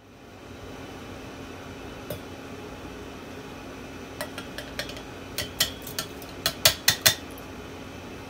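Frozen berries dropping from a bowl into a stainless steel mixer-grinder jar: a quick run of sharp clinks and clatters against the metal, loudest near the end, over a steady low hum.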